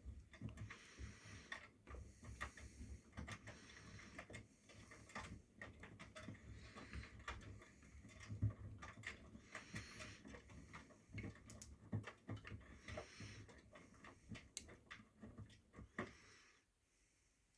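Miele front-loading washing machine with its drum turning, the laundry tumbling with irregular soft thumps and knocks and a faint high squeak about every second and a half; the drum stops near the end.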